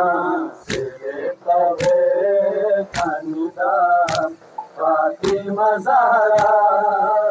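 A man's voice chanting a noha, a Shia mourning lament, without instruments. The mourners' chest-beating (matam) strikes in unison about once a second, six sharp slaps in all.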